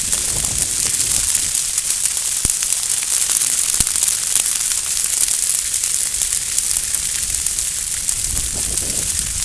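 Dry grass burning in a field fire: a steady crackling hiss of flames, with two sharper pops about two and a half and four seconds in.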